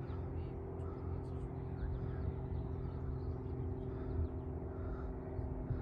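Steady low mechanical hum, like a distant engine, over a low rumble, with faint bird chirps above it.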